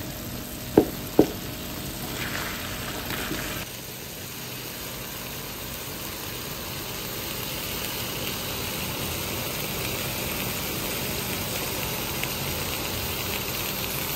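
Fermented cassava leaves (pekasam pucuk ubi) with kepayang fruit frying in a pan, giving a steady sizzle as their remaining liquid cooks off. Two sharp knocks come about a second in.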